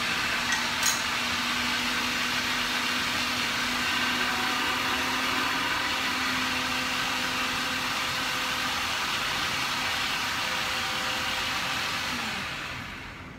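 Electric food processor motor running steadily as it grinds onion, ginger, green chillies and mint into a green masala. Near the end it is switched off and the hum falls in pitch as it spins down.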